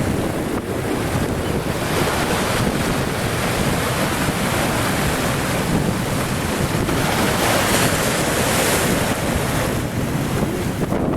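Strong wind buffeting the microphone, a steady loud rushing noise, with waves washing against the shore underneath.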